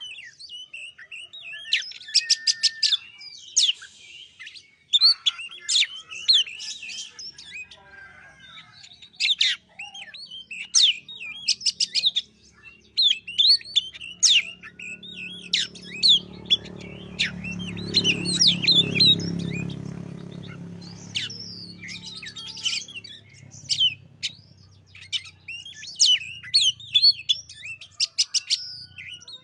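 Oriental magpie-robin (kacer) singing a fast, varied song of whistles, chirps and rapid trills: a lure recording meant to set a silent kacer singing. A low rumble swells and fades in the middle.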